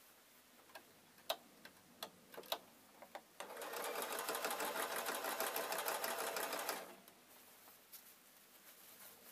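A few sharp clicks, then a domestic electric sewing machine stitching at a steady, even speed through faux fur fabric, starting about three and a half seconds in and stopping after about three seconds.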